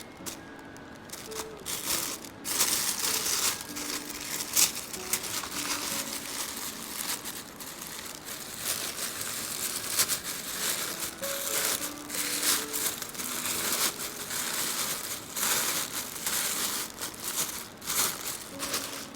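Paper packaging crinkling and rustling as it is handled and unwrapped, in many short crackles, with quiet background music carrying a simple melody underneath.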